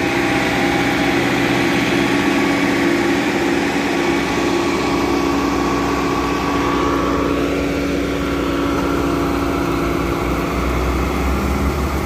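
Road roller engine running steadily while water from its spray nozzles hits hot fresh asphalt with a sizzle like something frying in oil. A deeper rumble builds from about halfway through.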